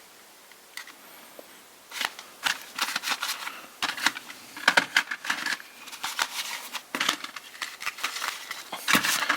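Hands rummaging through a box of flash bulbs and flashcubes, a quick run of clicks, clinks and rustles of packaging that starts about two seconds in.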